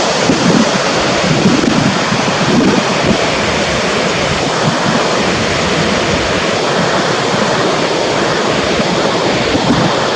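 Waterfall's steady rushing noise, with wind buffeting the microphone in uneven low rumbles.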